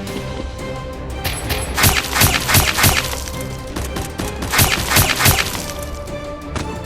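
Background action music with two quick runs of sharp hits or cracks, several in a row about a second in and a few more near the five-second mark.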